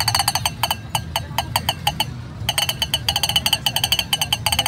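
Plastic push-along rooster toy rolled over grass, its wheel-driven clacker making rapid, ringing clicks that pause briefly about two seconds in.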